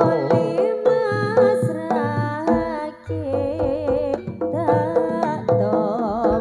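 Live Javanese jaranan music: a wavering melodic line over sharp drum strokes and a steady held tone. It briefly drops out about three seconds in.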